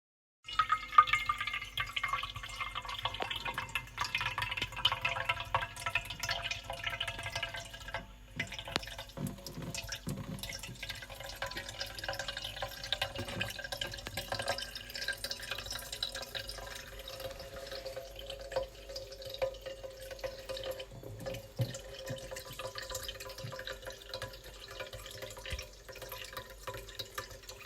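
Water running and dripping, with a steady patter of small splashes throughout.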